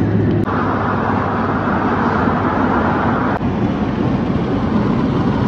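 Steady road and wind noise of a BMW car cruising on a motorway, heard from inside the cabin. The noise changes abruptly twice, where clips are cut together.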